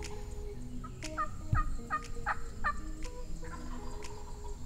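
Wild turkey calling: a run of short, falling notes, about two or three a second, clearest from about a second in.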